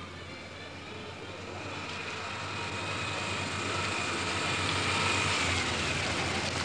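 A car approaching on a wet road, its engine and tyre noise growing steadily louder, with a faint whining tone that dips slightly in pitch near the end as it draws close.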